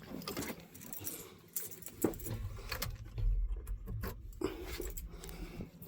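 A bunch of keys jangling and clinking as they are handled, with a low rumble joining in about two seconds in.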